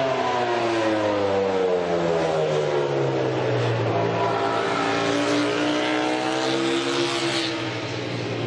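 MotoGP racing motorcycle engine with its pitch falling for about four seconds as it slows, then rising again as it accelerates.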